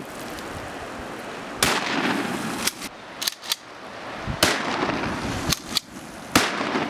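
Gunshots from a pump-action shotgun and a rifle firing into a river. Three loud shots come about two seconds apart, near a second and a half, four and a half and six and a half seconds in, with several quieter sharp cracks between them over a steady rushing background.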